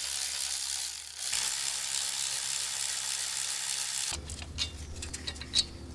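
Milwaukee M12 cordless 3/8-inch ratchet spinning out a 12 mm caliper slide pin bolt on the rear brake caliper. It runs with a steady motor whir, breaks off briefly about a second in, then runs again for about three seconds and stops, leaving a few light clicks of handling.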